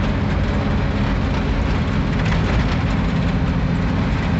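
Diesel engine of a truck loaded with soybeans running steadily on a downhill dirt road, heard from inside the cab with the rumble and rattle of the road. One engine note grows stronger about two and a half seconds in.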